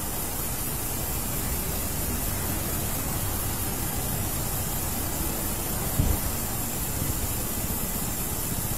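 Steady outdoor background noise: an even hiss over a low rumble, with a short bump about six seconds in.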